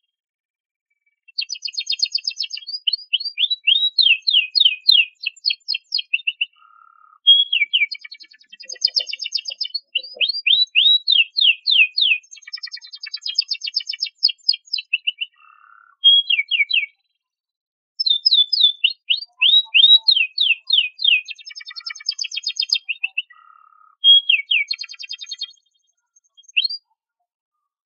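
Domestic canary singing: fast trills and rapid runs of downward-sweeping notes, in phrases several seconds long broken by short pauses.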